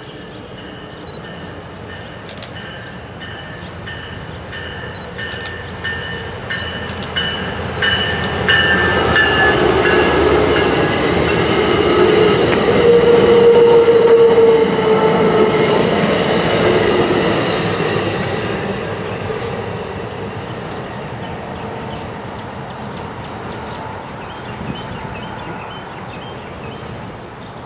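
MARC diesel-hauled commuter train of bilevel coaches approaching and passing, its wheels and locomotive building to a loud rumble about halfway through, then fading as it goes by.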